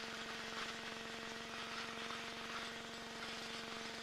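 Challenger II ultralight's engine running steadily at low power, a constant even hum with fine rapid pulsing and no change in speed.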